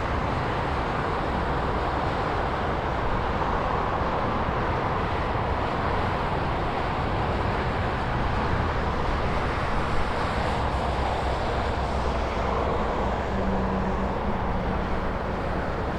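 Steady highway traffic: a continuous wash of tyre and engine noise from cars passing, with no single pass standing out.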